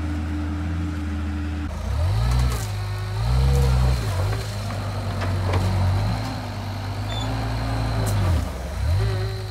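Diesel engine of a John Deere earthmover working to push out a deeply rooted tree, lugging down and revving back up several times. A few sharp knocks come through over the engine.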